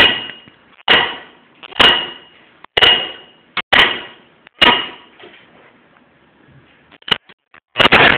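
Hammer blows struck overhead, six of them about one a second, each with a short metallic ring. After a pause and a few light knocks, a dense burst of clattering noise starts near the end.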